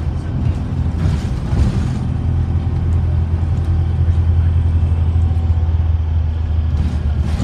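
Alexander Dennis Enviro400 double-decker bus under way, heard from the upper deck: a steady low engine drone with road noise, the bus now running on diesel alone after conversion from hybrid. A short rush of noise about a second in.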